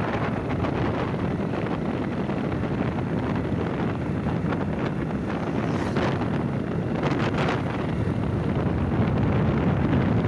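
Wind buffeting the microphone of a phone held up on a moving motorbike, a steady rush over the bike's engine and road noise, with brief louder gusts about six and seven seconds in.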